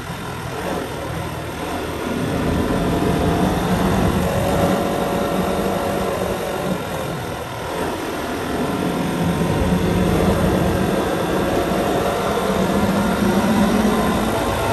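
Motorbike engine running under way on a winding road, its note dipping and picking up again a few times with the throttle, over a steady rush of wind and road noise.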